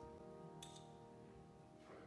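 The last held chord of the instrumental accompaniment to a sung worship chorus, dying away slowly and fading toward silence. A faint, brief rustle comes about half a second in.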